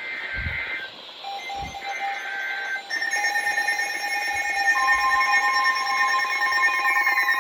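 NOAA Weather Radio alert start: the buzzing digital header bursts sound twice in the first three seconds, overlapped by steady alarm tones that build up to several tones at once. Near the end a falling, siren-like sweep begins.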